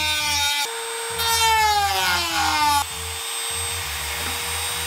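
Handheld rotary tool with a small disc cutting into an orange plastic dirt-bike handguard: its high whine sags in pitch as it bogs under the load of the cut. About three seconds in, it runs on steadily at a higher pitch, off the work.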